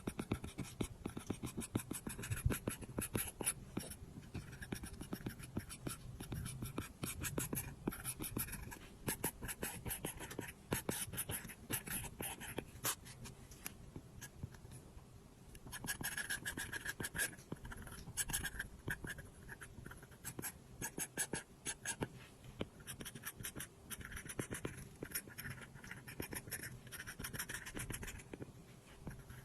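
Apple Pencil tip tapping and scratching across an iPad's glass screen in quick, dense strokes, easing off briefly about halfway through.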